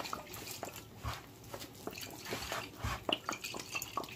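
A hand working liquid into a bowl of flour to form a dough: irregular squishing and crackling of wet dough and dry flour, with liquid trickling in from a bottle and a couple of soft low thumps.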